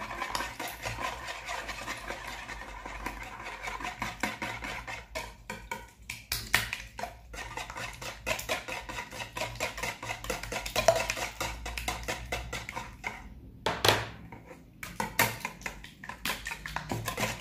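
Wire whisk beating eggs and oil in a plastic mixing bowl: fast, even clicking of the wires against the bowl, with a few short pauses and one louder knock about three-quarters of the way through.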